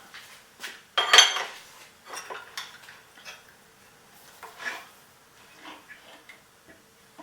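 Metal-on-metal clanks and clinks as a steel workpiece is set and clamped in a Fein VersaMAG magnetic drill press vise. The loudest clank comes about a second in and rings briefly, followed by scattered lighter knocks.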